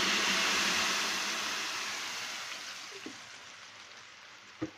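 Blended chili paste (dried chili, galangal, ginger, shrimp paste, onion, garlic and lemongrass) sizzling in hot oil in a wok, just poured in. The sizzle is loudest at first and dies down steadily as the paste starts to sauté.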